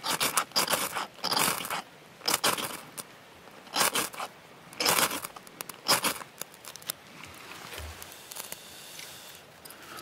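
Ferrocerium rod struck with a steel striker to throw sparks onto dry tinder: about seven short rasping scrapes, ending about six seconds in.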